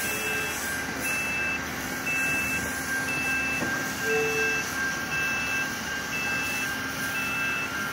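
Railway level crossing warning alarm beeping steadily: a high electronic beep about once a second over a lower, quicker beep about twice a second.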